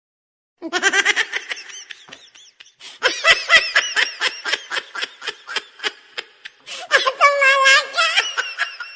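High-pitched laughter sound effect: a burst of giggling, then a rapid run of ha-ha pulses about five a second, ending in a long wavering squeal of laughter.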